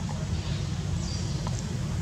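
A steady low rumble of outdoor background noise, with a couple of faint, short high chirps about a second in.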